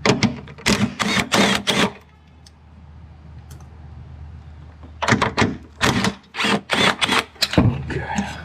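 Hand ratchet clicking in two spells of quick strokes, each about two seconds long, while working the air-suspension compressor's mounting bolts, which spin freely and won't tighten.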